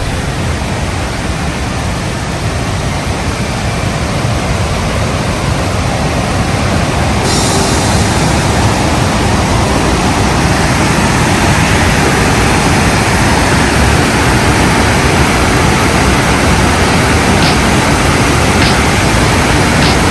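Waterfall rushing: a loud, steady, even rush of falling water, running high after rain.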